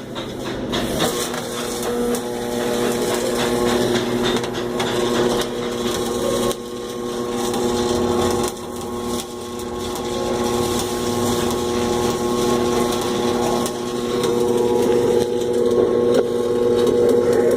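Stick-welding arc crackling and sputtering as a rod is run, over the steady hum of the welding machine.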